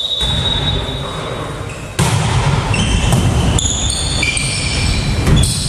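Indoor volleyball play on a hardwood gym floor: sneakers squeaking in short bursts, the ball being struck and players' footsteps thudding, echoing in the hall. The noise jumps up abruptly about two seconds in.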